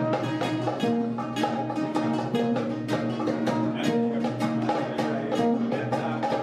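Improvised duet of kenora, an ancestral string instrument, and guitar: a quick, continuous run of plucked notes.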